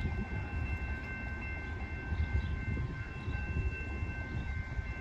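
Low rumble of an approaching Metra F40PHM-3 diesel locomotive and passing road traffic, with a faint, steady high-pitched chord of tones held throughout.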